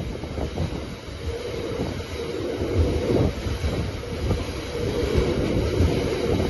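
Drax biomass hopper wagons of a freight train rolling past, a steady rumble of wheels on the rails broken by frequent low knocks from the wagons.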